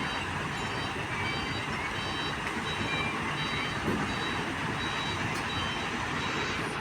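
Dump truck's reversing alarm sounding a run of short high beeps over its diesel engine running. The truck is backing up into position.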